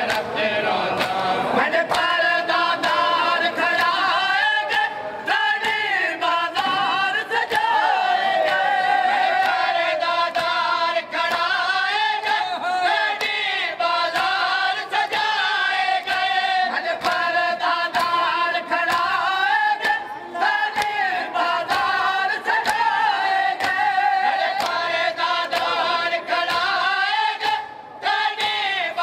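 Men's voices chanting a noha together in chorus, punctuated by regular sharp strikes of matam (chest-beating).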